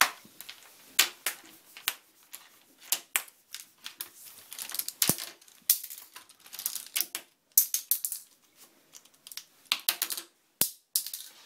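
Plastic clothespins clicking and clattering against each other and the plastic basket in irregular bursts as an African grey parrot rummages through them with its beak.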